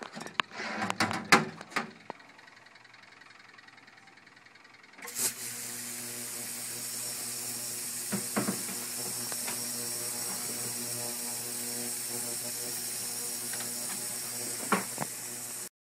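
An ultrasonic cleaner switches on about five seconds in and runs with a steady buzzing hum and a high hiss from its degreaser bath, cleaning carbon out of a chainsaw muffler. A few knocks and clicks come before it starts, and it cuts off suddenly just before the end.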